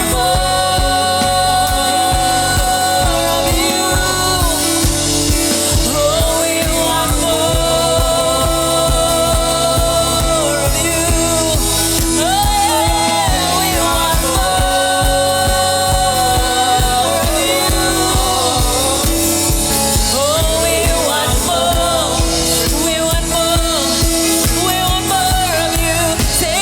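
Worship song with singing: long held sung notes over a steady low beat.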